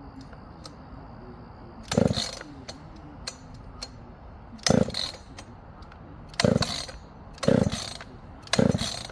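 Husqvarna 266 chainsaw being pull-started: five short rasping pulls of the recoil starter rope, each spinning the engine briefly. The engine never fires because the stop switch has been left on.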